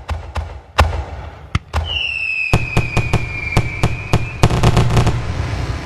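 Fireworks going off: a string of sharp bangs about three a second, then a whistle that starts about two seconds in and sinks slightly in pitch for a couple of seconds, then a fast cluster of bangs.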